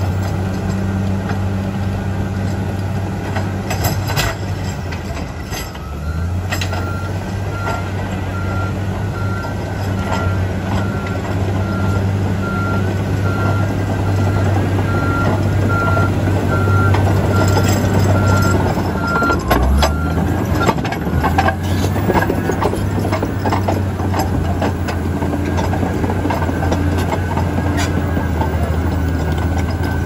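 Komatsu D85EX crawler dozer's diesel engine running under steady load with clanking from its tracks over rock as it backs up. Its reverse alarm beeps steadily from several seconds in until about two-thirds of the way through.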